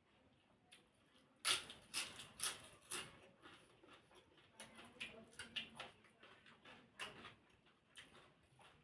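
Close-up eating sounds: irregular chewing, crunching and wet mouth clicks, loudest in a cluster about one and a half to three seconds in.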